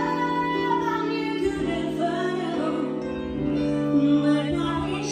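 Live band playing a slow song with a woman singing over sustained chords.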